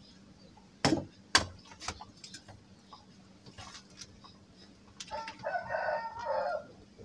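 Two sharp knocks about a second in, then lighter clicks of kitchen utensils on a stone mortar. Near the end a rooster crows once, for about a second and a half.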